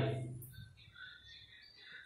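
A man's voice trails off, then a quiet pause in which faint bird chirps are heard in the background.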